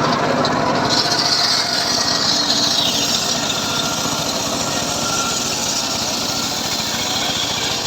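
Engine-driven homemade circular saw running steadily while cutting teak. A brighter, higher sound comes in about a second in and sinks in pitch over the next two seconds.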